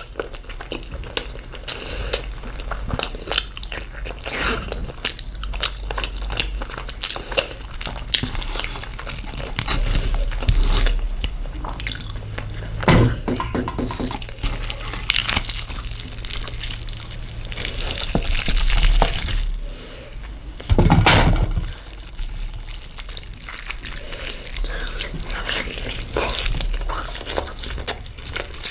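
Close-up wet eating sounds: chewing and slurping of curry and rice, with irregular squishy, smacking clicks and a few louder slurps.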